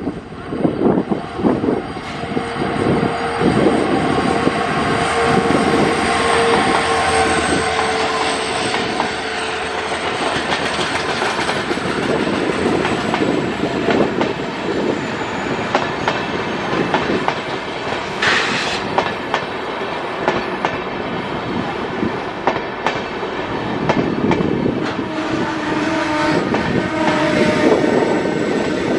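WDP4D diesel locomotive and its passenger coaches rolling past, the wheels clattering over the rail joints as the train slows to a stop.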